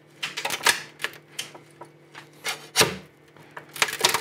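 A large spatula scraping and prying under the raft of a HIPS 3D print on the printer's build plate, in short irregular scrapes and clicks of plastic working loose, with the biggest strokes about half a second in, near the three-second mark and just before the end.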